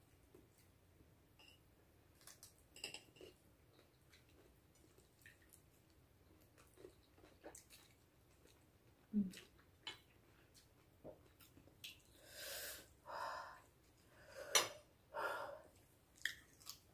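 Faint clicks of a fork on a plate and chewing, then from about twelve seconds in a run of four or five loud, hissing breaths and sniffs with a sharp click among them: a person breathing hard against the burn of very spicy noodles.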